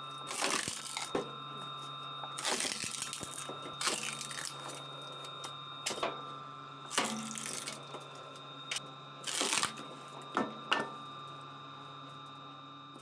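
Woodworking machine running with a steady hum and whine, broken every second or two by short hissing bursts of wood being cut, with scattered clicks.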